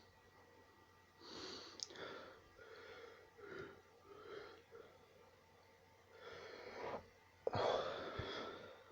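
A person building up to a sneeze: a run of short breathy gasps over several seconds, then one sudden, loud sneeze about seven and a half seconds in.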